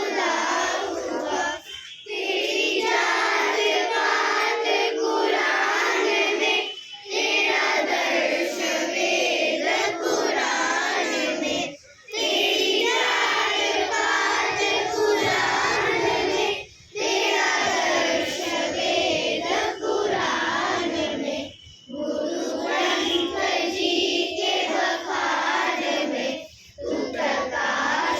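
A group of children singing together in unison, in long phrases broken by short pauses about every five seconds.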